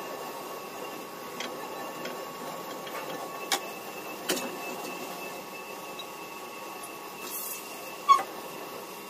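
Capstan lathe running steadily while machining brass bar stock, with a few sharp metallic clicks; the loudest is a ringing clink about eight seconds in.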